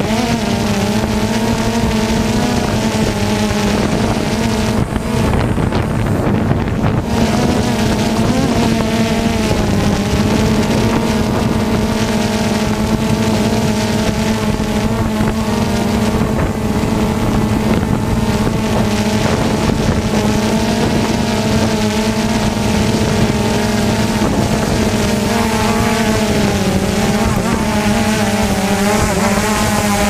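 DJI Phantom 2 quadcopter's electric motors and propellers buzzing steadily while it descends to land in strong wind, the pitch wavering slightly as the motors keep adjusting, with wind noise on the microphone.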